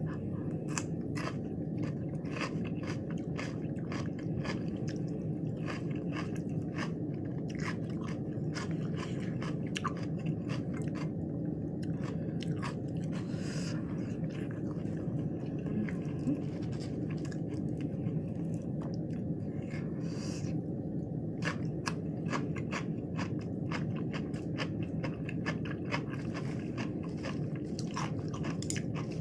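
Close-miked chewing of crunchy lettuce wraps with raw vegetables: many sharp, irregular crunches over a steady low background noise.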